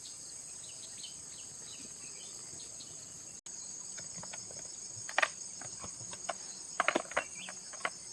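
A steady, high-pitched chorus of insects, with a few sharp clicks and taps in the second half; the loudest come about five seconds in and again around seven seconds.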